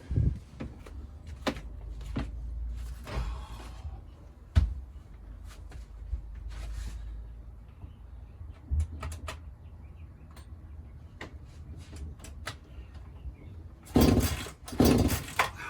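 Handling noises from a chainsaw being readied to start: scattered clicks and knocks, then two louder rasping strokes near the end. No engine running.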